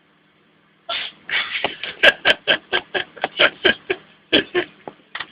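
A cat sneezing in a rapid fit, about sixteen short sharp sneezes at roughly four a second, starting about a second in.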